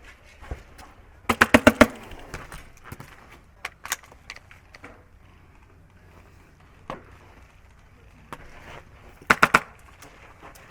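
Airsoft gun firing two short rapid bursts, about six shots a little over a second in and about four near the end, with a few single sharp cracks between.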